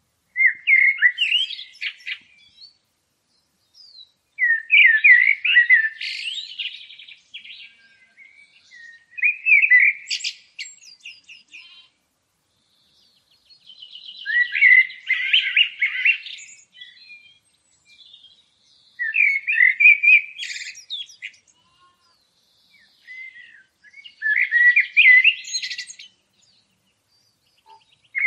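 A songbird singing in repeated phrases of quick chirps and trills, each two or three seconds long, with pauses of a second or two between them.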